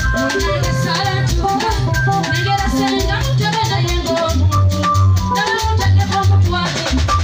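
Loud live stage music: amplified band music with a strong bass line and a steady percussion beat, with a woman singing over it into a microphone.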